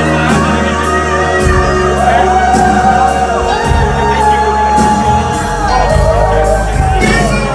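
A live band playing a song: a male lead singer's voice over electric guitar, bass guitar and drums, with a steady drum beat and gliding sung lines.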